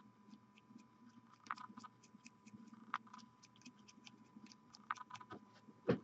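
Faint, irregular small ticks and scratches of a fine paintbrush working steel paint over a plastic miniature held in the fingers, with a faint steady hum underneath.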